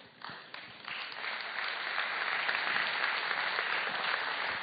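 Church congregation applauding; the clapping builds up over the first second and then holds steady.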